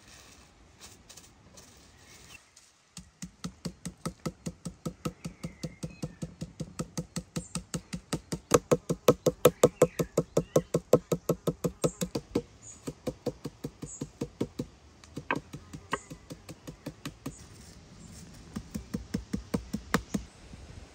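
A wooden rolling pin beats beef slices wrapped in plastic on a wooden stump, flattening the meat, with rapid, even thuds about four a second. The strikes start about three seconds in and are loudest in the middle. They then become lighter and sparser, and a quicker run comes near the end.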